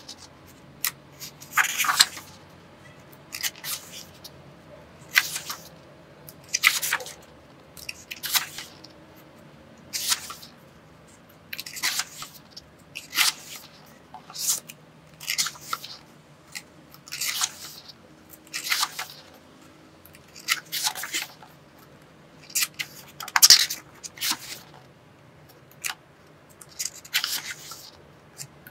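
Paper pages of a dress-design sketchbook being turned by hand one after another, a dry paper swish roughly every one and a half seconds.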